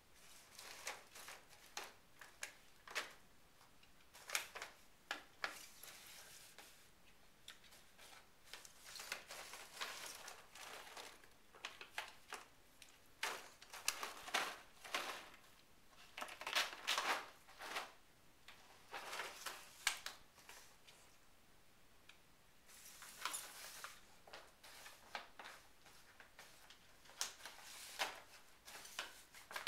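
Plastic treat bag crinkling and rustling in irregular short bursts as a dog noses and pushes it across the floor.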